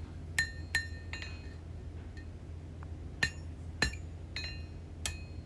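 Hammer blows on a high-carbon steel knife blank at the anvil, each with a short metallic ring: three quick strikes, a pause of about two seconds, then several more. The smith is working the stock down to isolate the blade from the handle. A steady low hum runs underneath.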